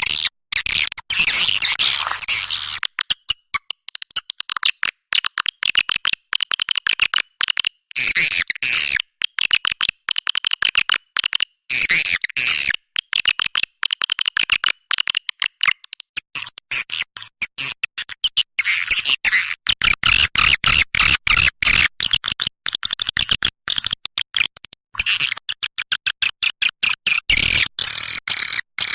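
Recorded swiftlet calls played as a lure: dense, rapid twittering and chirping, chopped by many very short silent gaps.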